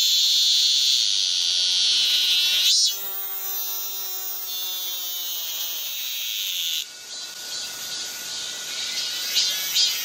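Cicadas singing: a loud, steady, high buzz. About three seconds in it weakens while a lower tone slides down in pitch for about three seconds. Near seven seconds the buzz softens further and carries on.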